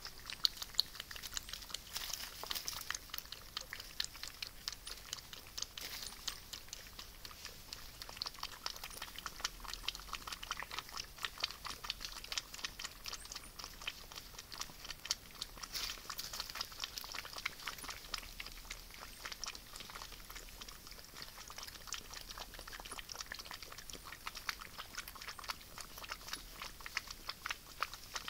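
South American coatis lapping water from a basin: a continuous rapid run of small wet clicks.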